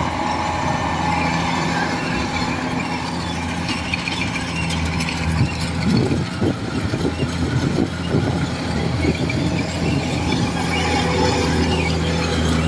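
Kubota DC-105X rice combine harvester running steadily under load as it cuts rice: a constant engine hum with the threshing machinery going. It turns rougher and uneven for a few seconds in the middle.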